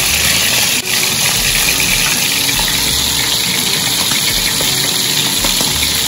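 Saltfish pieces sizzling steadily in hot oil in a frying pan: a loud, dense hiss, dipping briefly about a second in.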